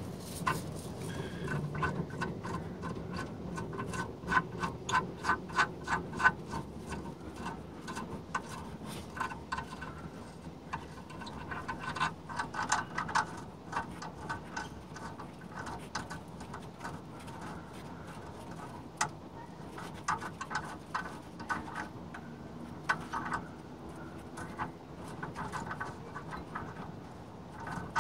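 Ratchet wrench clicking in runs of about three clicks a second, with pauses between runs, as a nut is worked on a rusted exhaust flange stud.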